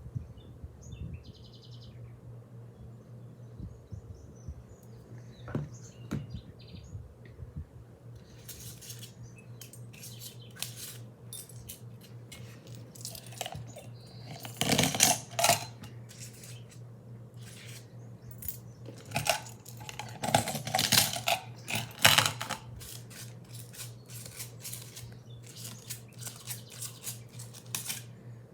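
Small metal snap button charms clinking and clattering as they are handled and moved about: scattered light clicks, with louder clatters about halfway through and again a few seconds later. A low steady hum runs underneath.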